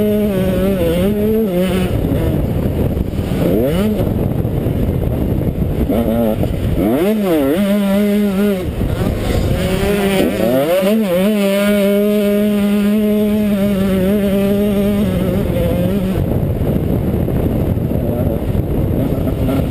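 Motocross bike engine under hard throttle, its revs climbing and dropping several times and holding high for a few seconds near the middle, over a steady rush of noise from wind and the track.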